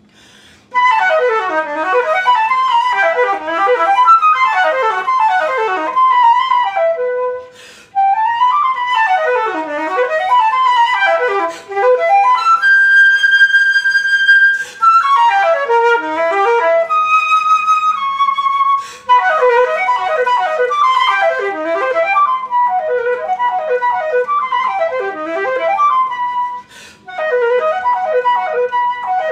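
Solo concert flute playing fast arpeggios that sweep up and down, with two long held high notes around the middle and short breaths between phrases.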